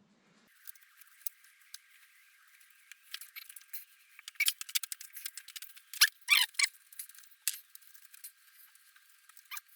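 Scattered small clicks, scratches and short squeaks of hands rubbing and handling dirty wiring cables during cleaning, with a brief cluster of squeaks about six seconds in.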